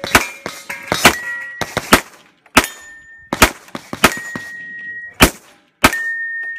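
Pistol shots fired in a quick, uneven string, about a dozen in all. Several shots are followed by a steel target ringing on a single high note for up to a second.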